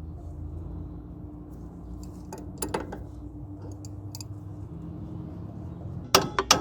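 Wrench and hand tools clicking and clinking against the steel tie-rod end and its nut: a few scattered sharp clicks, then a quick cluster of louder ones near the end, over a steady low hum.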